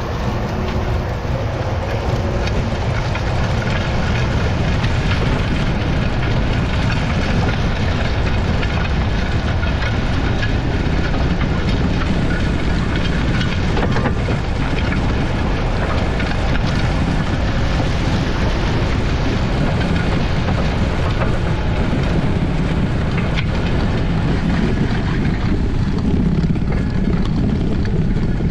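Large farm tractor running steadily: a loud, even, deep machine noise with no pauses.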